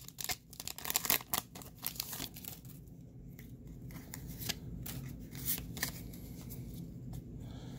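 A Pokémon booster pack's foil wrapper is torn open and crinkled by hand, with dense crackling over roughly the first two seconds. Then it goes quieter, with scattered light clicks and rustles as the cards are handled.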